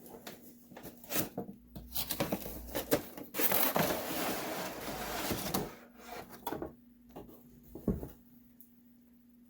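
A cardboard toy box and its packaging being opened and handled: scattered clicks and taps, a rubbing, sliding rustle for about two seconds in the middle, then a few knocks near the end.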